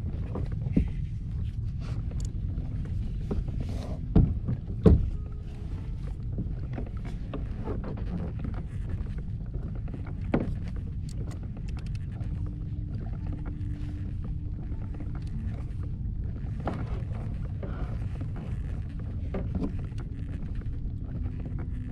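A fishing kayak moving on open water: a steady low rumble of water along the hull. There are a few sharp knocks on the hull or gear, two close together about four to five seconds in and one about ten seconds in.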